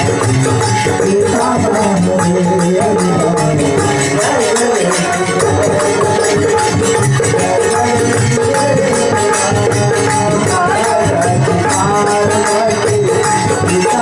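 Live folk music from a mandali group: a drum and jingling hand percussion keep a steady beat under a wavering melody line.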